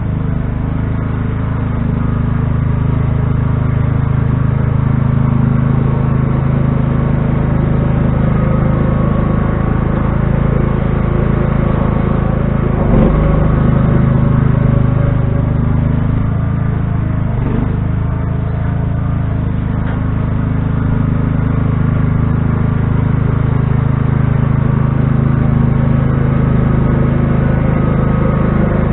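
Riding lawn tractor's small engine running steadily as it plows snow, its pitch dipping briefly twice as the blade takes on load.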